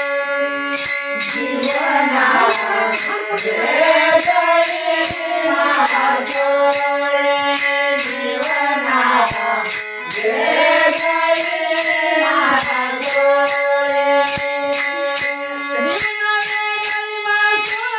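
A woman singing a Marathi abhang, a devotional song, with pitch sliding between long held notes, to the steady beat of jingling hand percussion.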